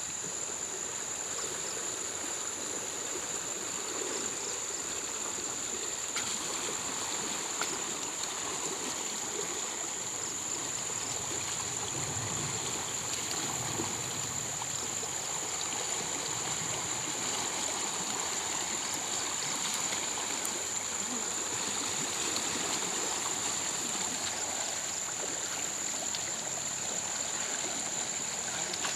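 River water flowing with a steady rushing sound, and a steady high-pitched whine running over it.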